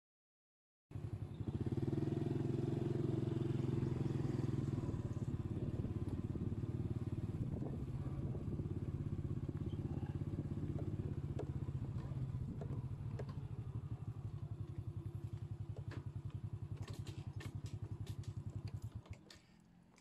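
A small engine running steadily with a fast, even low putter, easing off a little before it cuts off abruptly about a second before the end.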